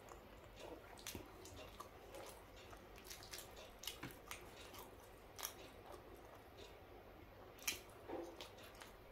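Faint wet chewing and mouth smacks of someone eating sambar-soaked idli by hand, with soft squelches of fingers working the food in the sambar. Scattered short clicks throughout, with sharper smacks about halfway through and near the end.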